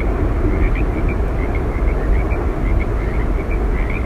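Yosemite Falls: a loud, steady rush of falling water with a deep rumble, and small high chirps scattered through it a few times a second.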